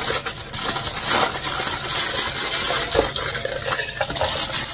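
Metal kitchen utensils clinking and scraping against a dish in rapid, irregular clicks.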